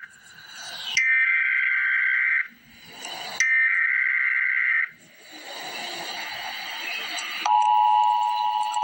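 Emergency Alert System broadcast tones. Two harsh, warbling bursts of the SAME digital header data, each about a second and a half long, are followed by a rough noisy stretch. Near the end the steady two-tone EAS attention signal begins.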